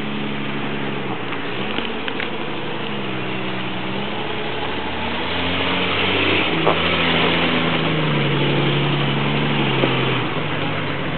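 Jeep Grand Cherokee ZJ engine running at low revs as the SUV crawls down a dirt trail, its pitch shifting up and down several times. It grows louder in the second half as the Jeep comes close.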